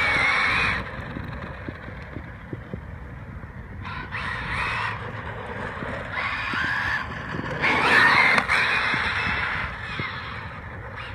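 Crows cawing in short harsh calls, in groups of one or two, four times, the loudest about eight seconds in, over a steady low rumble.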